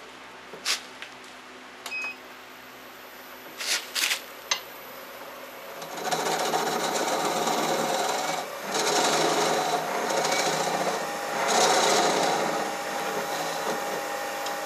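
A few light clicks over a faint steady hum, then from about six seconds in a turning tool scraping across the face of a spinning wooden yo-yo half on a wood lathe, truing its surface, with two short breaks in the cut.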